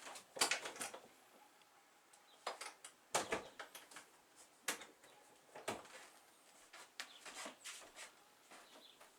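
Soft, irregular rustling and scuffing of a body and clothing moving on a yoga mat, in short bursts a second or two apart.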